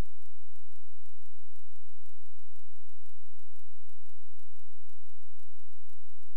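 Background music: a steady low bass drone under fast, even ticks, about six or seven a second.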